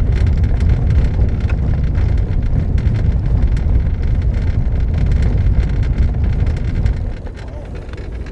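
Road noise of a moving car heard from inside the cabin: a steady low rumble that drops noticeably about seven seconds in.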